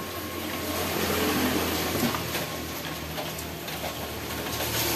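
Steady hiss of rain, with faint knocks and rustles of plastic-wrapped instant-noodle cups being stacked on a shop shelf.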